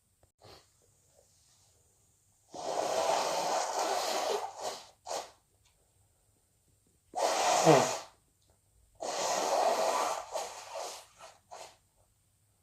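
A person with a head cold sneezing and blowing their nose in separate bursts: two long, noisy ones of about two seconds each, and a shorter one between them whose voice falls in pitch.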